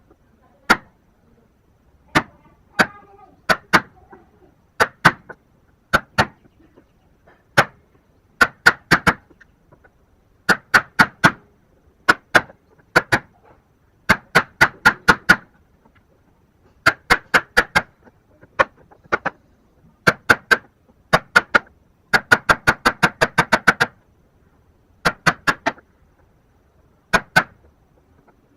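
A wood chisel struck repeatedly with a mallet while a joint is cut out by hand. The blows come in bursts of one to several sharp knocks, with a quick run of rapid blows near the end.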